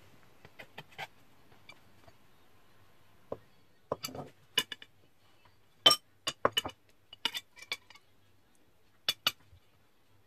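Flat metal spatula knocking on a wooden cutting board and clinking against a ceramic plate as a steamed rice noodle roll is lifted and served: a scatter of short, sharp clicks and clinks, the loudest about six seconds in.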